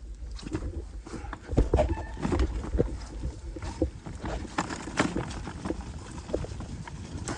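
Mountain bike clattering over a rough trail: irregular knocks and rattles from the tyres and frame hitting rocks and roots, over a steady low rumble, with the loudest knocks about one and a half to two and a half seconds in.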